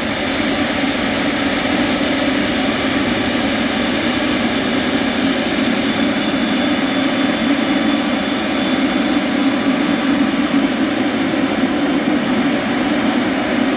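Jet airliner engines passing close, a steady loud rush of noise with a faint high whine in the middle.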